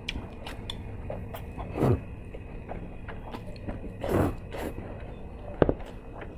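A person eating noodles close to the microphone: chewing and mouth sounds with many small clicks, two louder bursts about two and four seconds in, and a sharp click near the end.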